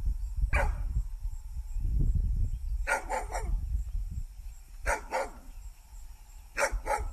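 Dog barking in short, sharp barks, eight in all: one, then a quick run of three, then two pairs.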